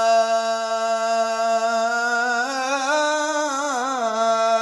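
A man's voice chanting the Torah in Hebrew with traditional cantillation (Jerusalem custom). He holds one long sung note steady, and about halfway through it breaks into a wavering, ornamented melisma.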